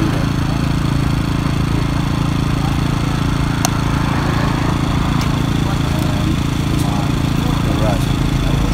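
An engine idling steadily, a low even hum, with a few faint light clicks over it.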